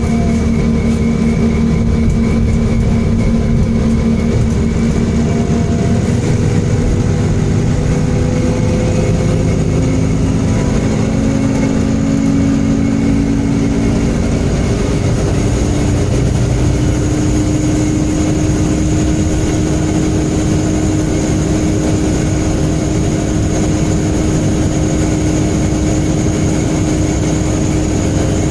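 MAN Enviro 300 single-deck bus running, a steady engine and drivetrain drone with pitch shifts as it changes speed. A steady high-pitched whine sits over it and grows stronger about halfway through.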